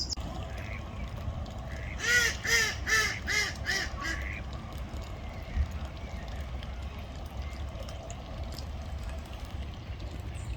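Duck quacking: a quick run of five quacks about two seconds in, each a little softer than the one before, over a steady low rumble, with a single short knock a few seconds later.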